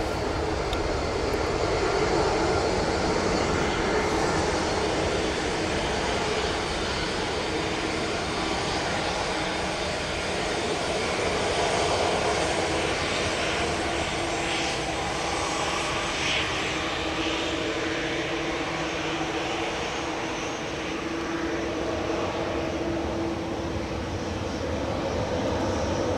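Boeing 787-10 Dreamliner's twin turbofan engines at takeoff thrust during the takeoff roll, liftoff and initial climb: a steady, even jet rumble with a low hum that grows stronger in the second half.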